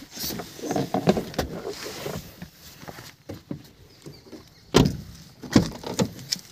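Handling of a car door: rustling and light clicks, then two sharp knocks about five seconds in, the loudest sounds, as the door is worked.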